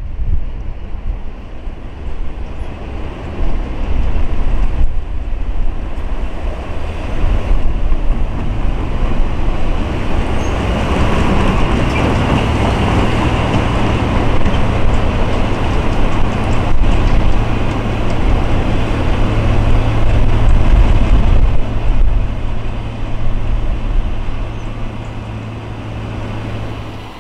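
Freight cars of a Norfolk Southern train rolling past: a steady rumble and rattle of wheels on rail that carries on until near the end.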